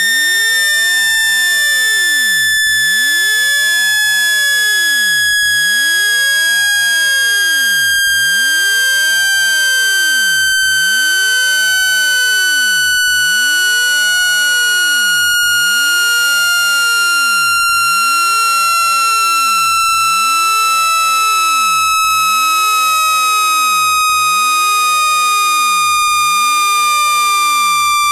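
Electronic speaker-cleaning tone sweep: a loud, steady buzzy tone with overtones, gliding slowly down in pitch. It is meant to vibrate water and dust out of a phone speaker.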